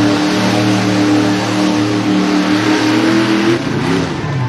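Jeep's engine held at high revs as it drives through a mud pit, one steady high note over the hiss of flung mud. About three and a half seconds in, the note breaks up and drops away.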